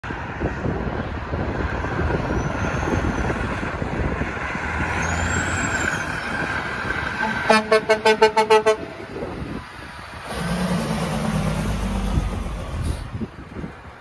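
Kenworth W900 semi truck's air horn sounded in a quick series of about eight short blasts, the loudest thing here, over the steady run of diesel truck engines and traffic. A few seconds later a deep diesel engine rumble swells and fades as a truck pulls away.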